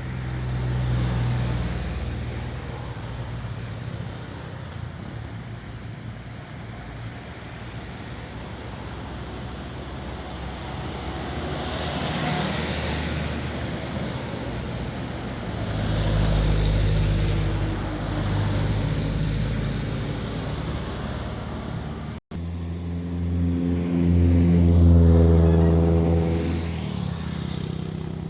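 Road traffic: several motor vehicles pass one after another, their engine sound swelling and fading. The loudest, a deep-running engine, passes near the end.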